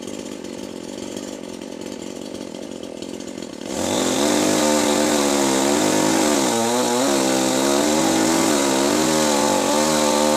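Chainsaw running, then opened up to full throttle about four seconds in, its engine pitch rising and falling under load as it cuts wood.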